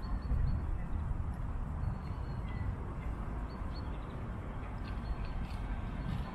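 Low steady rumble with faint, short, high bird chirps every so often.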